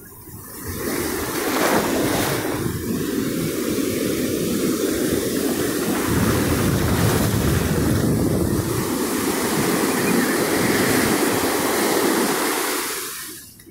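Rough Pacific Ocean surf: breaking waves and foam washing up the sand beach in a steady roar of water noise, with wind buffeting the microphone. It swells up about a second in and drops away sharply near the end.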